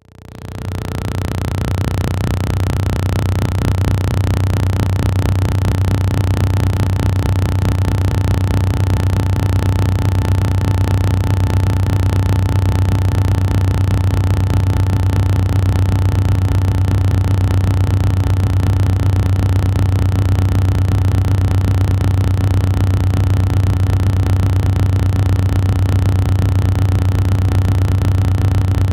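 A loud, steady low droning hum that swells up over the first two seconds, then holds level without a break.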